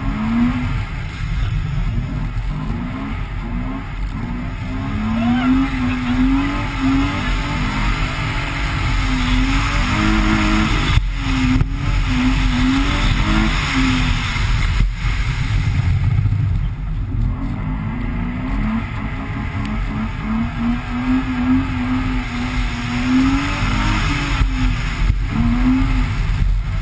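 BMW E30's engine revving up and down again and again as the car is driven through snowy bends, over a steady low rumble. There are a few sharp knocks around the middle.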